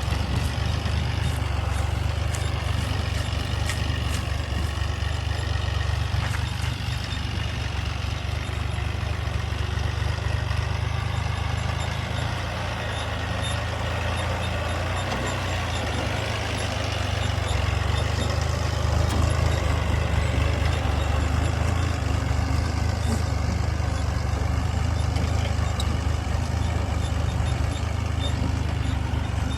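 Heavy diesel machinery engine running steadily with a deep, constant low hum, growing slightly louder about two-thirds of the way through.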